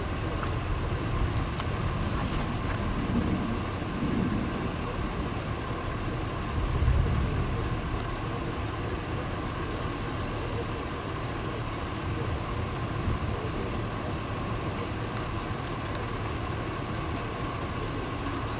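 Wind noise on the microphone: a steady low rush with a stronger gust about seven seconds in, over a faint steady hum.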